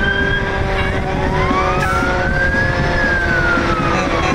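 Fire vehicle siren wailing, its pitch rising for about two seconds and then falling, over the low rumble of slow-moving trucks.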